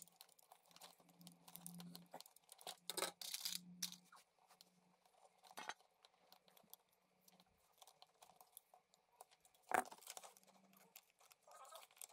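Faint handling sounds of a coaxial cable end being worked by hand: scattered scraping, crinkling and small clicks, with one sharper click about ten seconds in.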